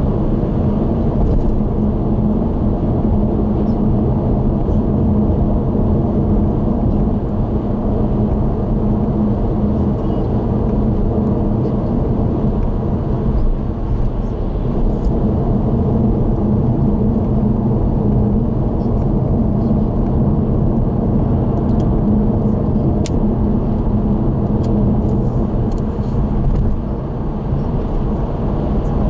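Car driving at expressway speed, heard from inside the cabin: steady tyre and engine noise with a low hum.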